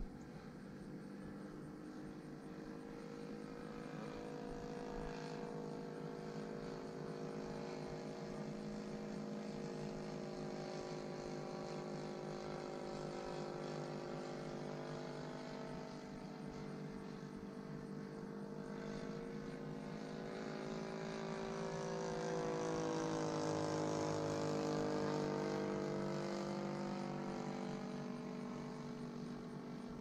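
Radio-control Nieuport 28 model airplane's engine and propeller droning steadily in flight, stuck at a fixed part throttle just high enough to fly after throttle control was lost. About two-thirds of the way through it grows louder and its pitch shifts as the plane passes close by, then fades again.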